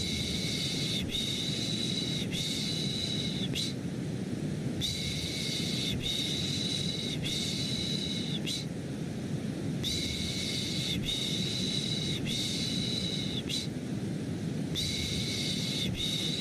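A person's shushing, 'shh-shh-shhh', repeated in groups of three about every five seconds, layered over a steady, deep white-noise hiss meant to soothe a baby to sleep.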